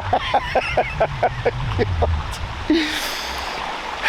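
A man laughing in a quick run of short "ha"s for about two seconds, followed by one short vocal sound, over a steady background rush.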